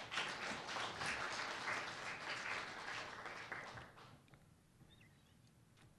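Audience applauding, many hands clapping together, dying away about four seconds in.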